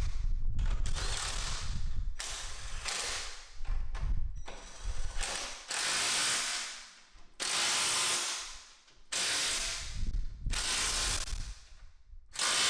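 Cordless impact wrench hammering bolts tight in a series of loud bursts of about a second each, about eight in all, with short pauses between.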